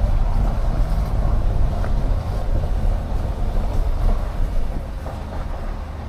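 Car moving slowly, heard from inside: a steady low rumble of engine and tyres that eases off near the end as the car slows.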